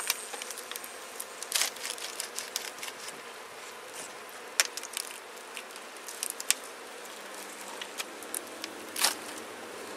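Honeybees buzzing steadily on the comb, with a serrated knife scraping and crackling as it cuts through beeswax honeycomb, in sharp strokes several times, the loudest around the middle and near the end.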